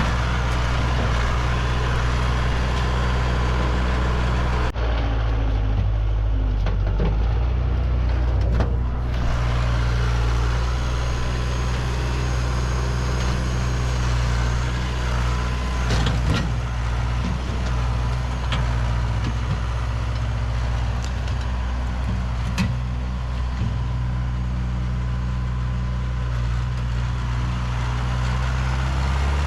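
Tractor engine running steadily under work, with a few sharp knocks along the way.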